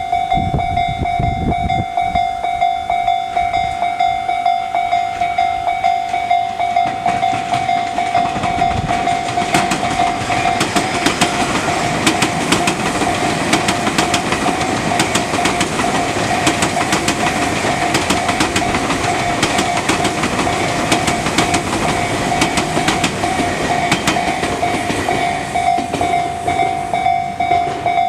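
A Japanese level crossing's electronic warning bell, of the Tōjō Line type, rings steadily in a fast repeating pulse. From about nine seconds in until near the end, a Tobu 50050 series electric train passes, its wheels clacking over the rail joints under a rising and then fading rush of running noise.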